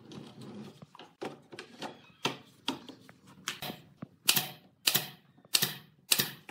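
Pneumatic nail gun firing nails into a wooden frame: sharp clacks, with lighter clicks at first and then four loud shots in quick succession from about four seconds in.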